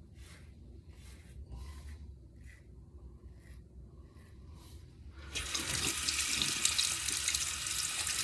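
Faint rubbing strokes about twice a second, then about five seconds in a tap is turned on and water runs into the sink with a steady hiss.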